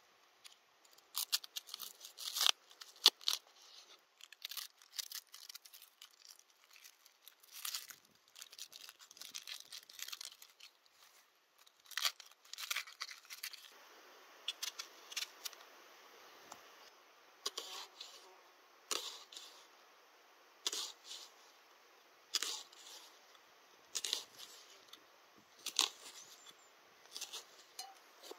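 Small knife peeling and cutting a whole onion held in the hand: the papery skin crackles and tears, with crisp cuts and snaps at irregular intervals.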